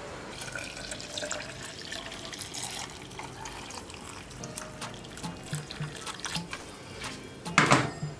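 Hot water being poured into a clear plastic tumbler, a steady splashing pour as the cup fills. A brief louder sound comes near the end.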